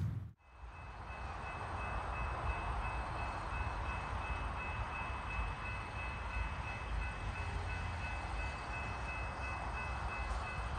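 Distant railway level crossing electronic bells ringing, the continuous warning that a crossing has activated for an approaching train. They sound as two thin, steady high tones over a steady low rumble, fading in just after a brief silent cut at the start.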